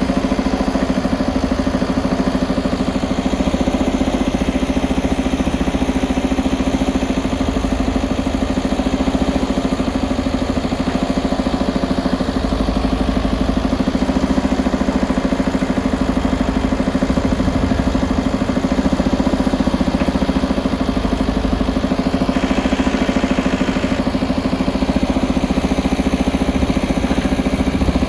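JCB 3DX backhoe loader's diesel engine running steadily at a constant speed.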